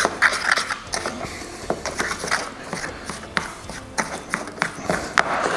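Wet, lumpy PVA bouncy-ball mixture being mixed and squeezed by hand in a plastic bowl: irregular small clicks and crackles.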